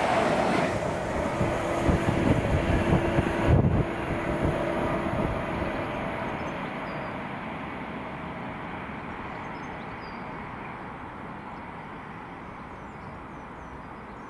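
A train passing on the main line, its rumble and wheel noise loudest at first, with a run of low knocks about two to four seconds in, then fading steadily as it draws away.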